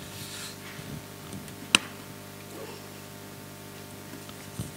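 Quiet hall room tone with a steady low hum, broken by a single sharp click a little under two seconds in and a few faint clicks near the end.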